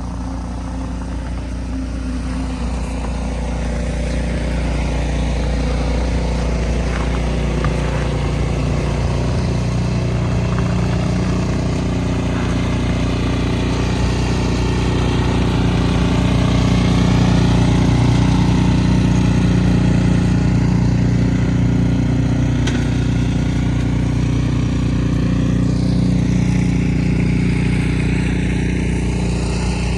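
An engine running steadily, growing louder over the first several seconds.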